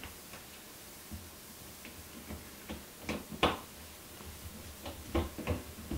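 Light metal clicks and small taps from screws and a conduit clamp being fitted and started by hand in the conduit fitting on a transfer switch's steel box. They are scattered and irregular, with the sharpest two just after three seconds in.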